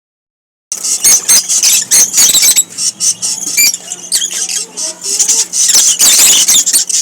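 A flock of lovebirds chattering with shrill, rapid overlapping chirps and squeaks, starting about a second in. A faint steady hum runs underneath.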